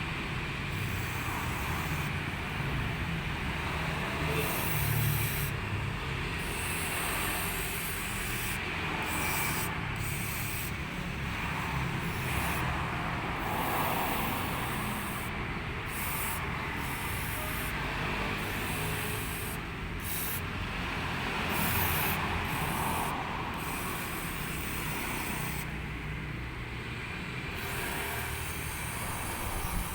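Continuous scrubbing and rubbing noise that comes and goes in strokes every second or two, from cleaning out the mud-caked inside of a Kawasaki Kaze motorcycle engine.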